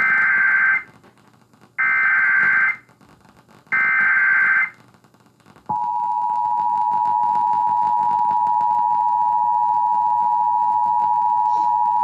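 Emergency Alert System tones. Three short bursts of SAME digital header data come about two seconds apart; they encode the alert, here a flash flood warning. About six seconds in, the steady two-tone EAS attention signal starts suddenly and holds, announcing the spoken warning to follow.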